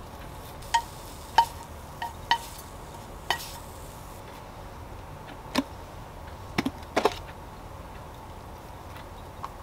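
A kitchen knife blade clicks and taps against a ceramic bowl several times as chopped garlic chives are scraped off it, each click ringing briefly. About halfway through come a few duller knocks as a frying pan and spatula bump the bowl while scrambled egg is scraped in.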